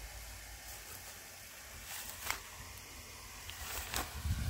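Faint outdoor ambience with a few soft, short clicks, and a low rumble building near the end.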